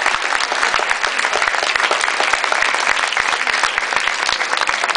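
Large indoor audience applauding steadily, dense clapping throughout.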